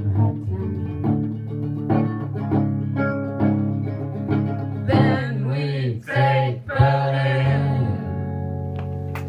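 Live acoustic song nearing its end: plucked strings keep a steady beat over a low bass line. A sung line comes in about five seconds in, and the music ends on a held, fading chord.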